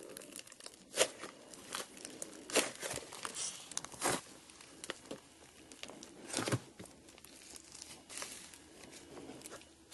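Hands pressing, folding and stretching thick green slime, giving an irregular crackling with sharp pops. The loudest pops come about a second in, again near 2.5 and 4 seconds, and once more about 6.5 seconds in.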